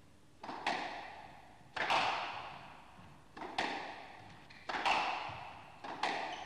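Squash rally: the ball being struck by racquets and hitting the court walls. Sharp smacks come mostly in close pairs, about every second and a half, each ringing out in the court's echo.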